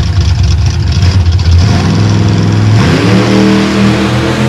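V8 drag-racing engine in a vintage pickup truck rumbling at the starting line, then launching about three seconds in, its pitch climbing quickly as it accelerates hard.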